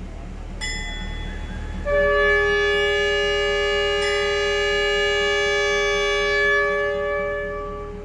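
Train's air horn sounding one long, steady chord of several notes for about six seconds, starting about two seconds in: the departure signal before the train pulls out.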